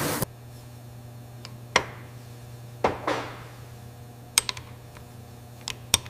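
The hiss of a machine tool cutting metal under coolant spray cuts off right at the start. Then come a handful of light, irregular metallic taps and clicks as a hammer works a ball bearing into an engine block, over a low steady hum.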